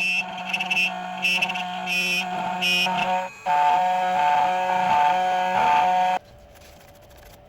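CNC key cutting machine running as it cuts the second side of a Toyota key blank: a steady motor whine with a higher pulsing tone. It dips briefly about three seconds in, then stops a little after six seconds as the cut finishes.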